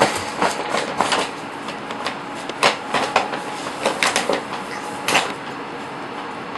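Stiff paper gift bag crinkling and rustling in a quick series of sharp bursts as a cat wriggles her way inside it; the rustling stops about five seconds in.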